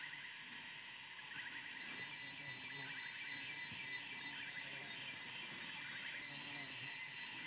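Steady high buzzing of tropical forest insects, with short chirping calls repeating every second or two.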